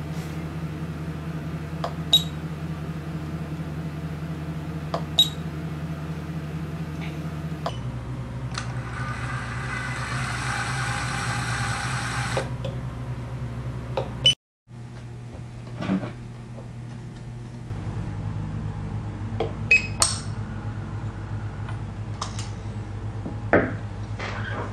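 IML-RESI PD-Series resistograph running with a steady electric hum, with scattered sharp clicks from its navigation knob. For about four seconds in the middle its feed motor runs with a higher, louder sound as the unit moves the drilling needle out.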